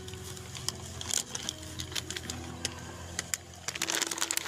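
Irregular clicks and crackles of thin clear plastic food trays being handled, denser near the end, over a steady low hum.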